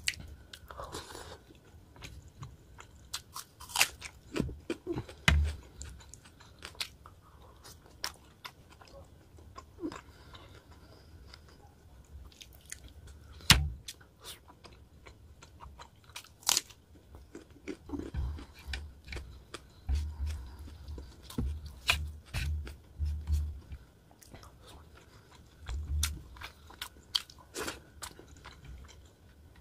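Close-miked chewing and wet mouth sounds of a person eating rice and rohu fish curry by hand, broken by sharp clicks at irregular intervals, the loudest about halfway through.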